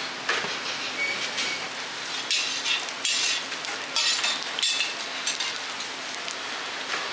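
Scallion pancakes frying in oil in round pans, a steady sizzle, with a few short clinks and scrapes of a metal spatula against the pan.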